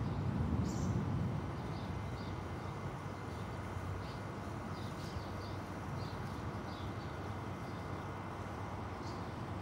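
Outdoor ambience: a steady low rumble that is louder during the first second and a half, with faint small-bird chirps repeating every second or so.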